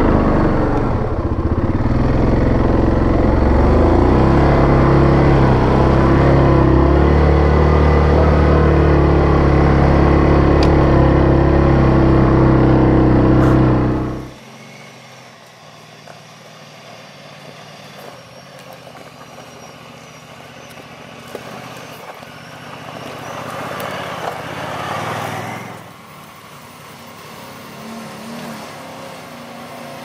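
Yamaha Grizzly 700 ATV's single-cylinder engine running loud under load in low range, climbing a steep washed-out trail. About halfway through the loud engine sound cuts off suddenly, leaving a much fainter engine sound that swells and fades again near the end.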